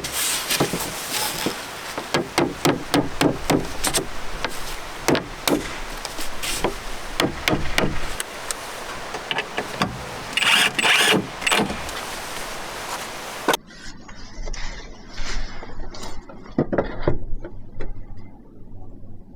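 Irregular series of knocks and clatter, like objects being handled and set down. The sound turns duller and sparser about two-thirds of the way through.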